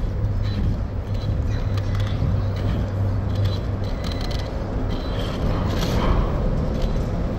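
Axial Ryft RC rock bouncer driving over rough ground, its electric drivetrain running with a steady low hum for the first half and scattered small clicks throughout.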